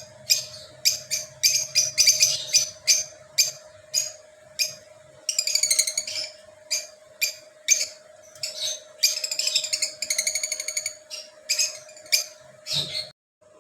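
Small pet parrots calling: a run of sharp, high chirps, about one or two a second, with a few longer screechy calls among them. A steady faint hum lies underneath.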